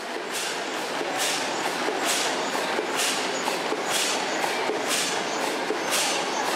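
A steam engine exhausting in a steady rhythm of steam chuffs, about one strong chuff a second with weaker ones between.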